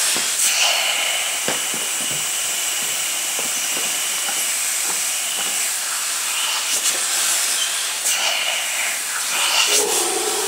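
Compressed air hissing steadily from a homemade rotary disc valve on a small air-driven engine, with light mechanical clicks as the engine is worked by hand. The engine won't run: too much air squeezes out between the valve's plates.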